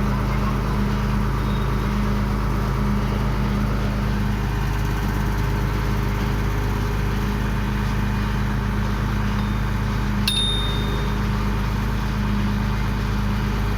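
GD 45 horizontal directional drilling rig's engine running steadily at a constant pitch, with a single sharp metallic ping about ten seconds in.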